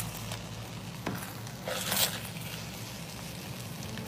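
Spatula stirring and scraping cooked rice in a pot as it dries over the heat, with a faint sizzle; a few scrapes, the loudest about two seconds in.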